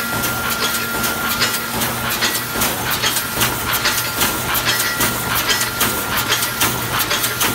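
JK-AW-1200 automatic chicken cage welding machine running, resistance-welding cross wires onto wire mesh: a rapid, uneven stream of sharp clicks and snaps over a steady hum.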